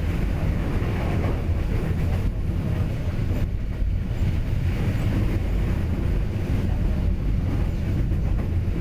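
Train running along the track: a steady low rumble with no breaks.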